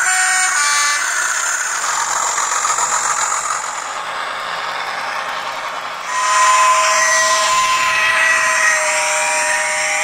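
N gauge model locomotives running on track: a rushing hiss from the motor and wheels, which about six seconds in becomes a steadier motor-and-gear whine with several held tones that drift slightly lower.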